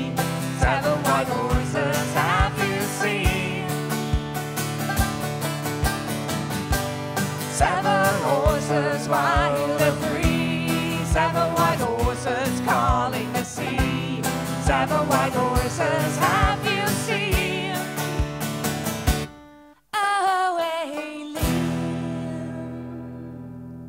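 Live acoustic folk: a woman and a man singing together over strummed acoustic guitar and banjo with a steady beat. About nineteen seconds in the playing stops suddenly for a short sung phrase, then a final chord rings out and fades away as the song ends.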